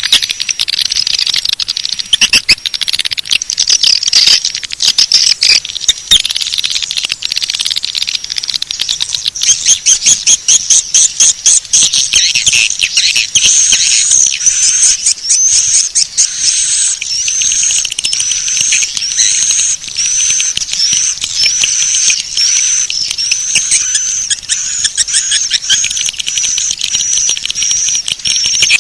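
Swiftlet calling-sound lure track: dense, high twittering and fast clicking chirps of swiftlets, with a short rising chirp repeating about once a second from roughly halfway through. This is the kind of call played in a swiftlet house to attract birds to nest.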